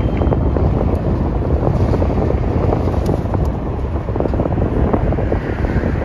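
Freight train cars rolling past below, a steady rumble and clatter of wheels on rail, with heavy wind buffeting the microphone.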